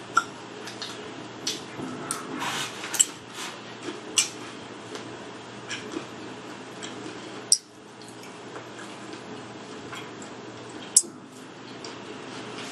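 Eating sounds: chewing, with a few sharp clicks of a fork against a plate.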